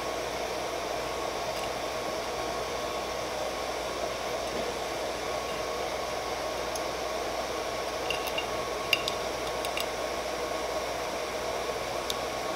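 Steady whir of a 3D printer's small cooling fans, with a faint steady tone. A few light metallic clicks from a hex key and screws come about eight to ten seconds in and once more near the end.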